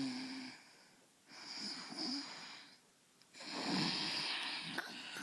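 A person snoring: three long breaths, each about one and a half to two seconds, separated by short pauses. The first has a low buzzing drone.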